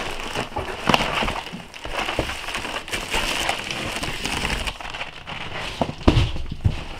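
Plastic bubble wrap crinkling and rustling as a boxed item is pulled out of a cardboard shipping box, with scattered crackles and knocks. About six seconds in, a dull thud as the cardboard box is set down on a wooden table.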